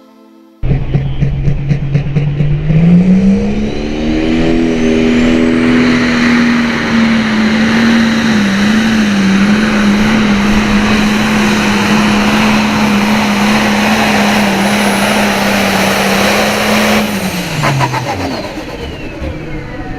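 Super farm pulling tractor's diesel engine under full throttle on a pull: it cuts in loud, climbs in pitch about three seconds in, holds a steady high note for about fourteen seconds, then drops off near the end as the throttle comes off.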